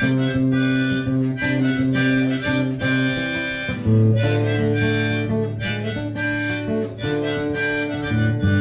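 Harmonica playing held chords over a strummed acoustic guitar, with no singing; the chord changes about halfway through.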